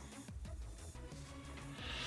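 Quiet background music with soft low notes.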